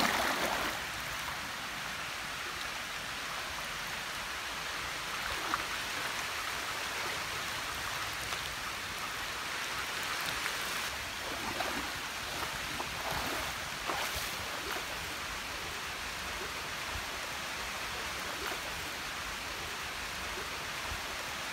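Steady rushing of a flowing stream, with a few faint splashes of someone wading through it.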